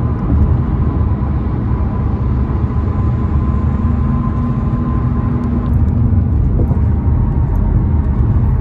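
Steady low road and engine rumble inside a car's cabin cruising at freeway speed.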